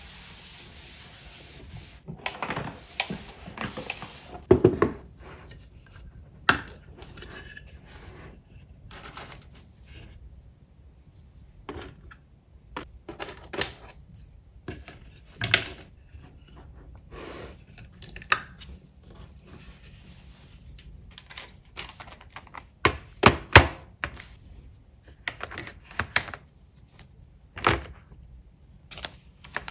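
A cloth wiping a desktop with a steady hiss, then small objects being handled and set down: scattered clicks, taps and knocks of rings, crystals, pens and plastic trays on a desk, with a tight cluster of louder knocks a little past the middle.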